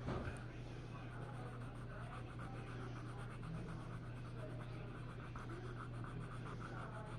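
Quick, repeated scratchy strokes of a drawing or painting tool working over paper, over a steady low hum. There is a short knock right at the start.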